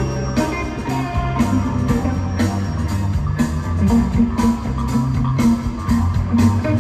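Rock band playing live in an arena: electric guitar and bass over drums keeping a steady beat of about two strikes a second.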